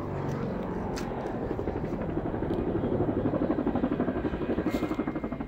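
Helicopter rotor chopping overhead in an even, fast rhythm, growing louder over the first few seconds as it approaches.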